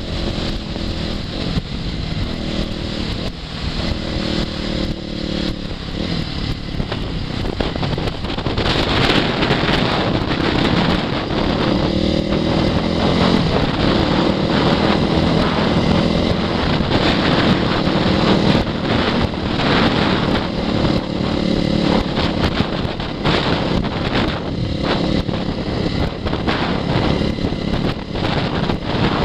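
Honda CRF450R's single-cylinder four-stroke engine running under way, its pitch rising and falling repeatedly as it revs up and backs off, with wind buffeting the microphone.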